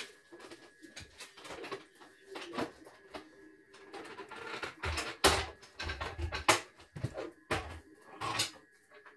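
Irregular clicks and knocks of hands and a tool working on the plastic-cased head of a CNY portable embroidery machine during servicing, with two louder knocks about five and six and a half seconds in.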